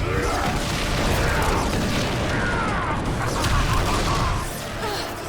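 Loud action-scene sound effects: booming, rumbling impacts with sweeping, gliding energy-blast tones, layered over the show's dramatic score.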